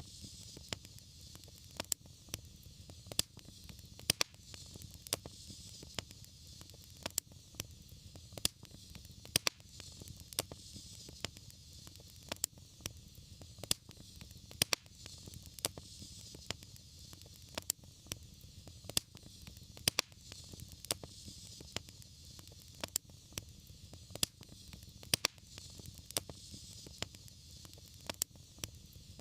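Wood fire crackling in a fireplace: sharp, irregular pops about one or two a second over a steady low rumble and a soft hiss.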